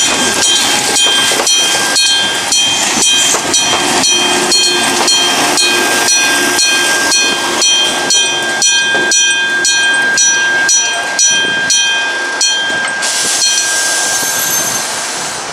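Japanese level crossing's electronic warning bell ringing at a steady beat of about two strikes a second, stopping about 13 seconds in. Under it, the Fujisan View Express train runs over the crossing.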